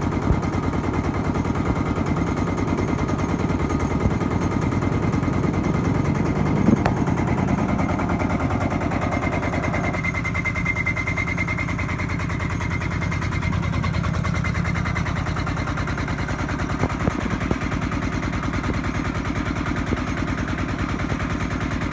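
Single-cylinder walking-tractor diesel engine running at a steady fast chug, belt-driving a small household rice mill as it mills paddy.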